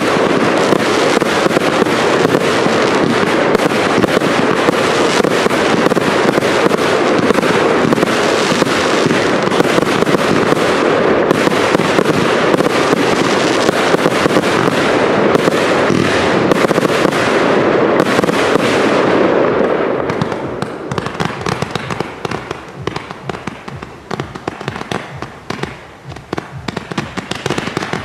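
Cake (battery) fireworks firing a dense, continuous barrage of launches, bangs and crackle. About twenty seconds in, the barrage thins to sparser, quieter pops and crackles.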